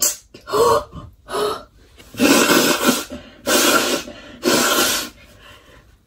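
A woman gasps a few times just after a sneeze, then blows her nose hard into a tissue, three long noisy blasts in a row.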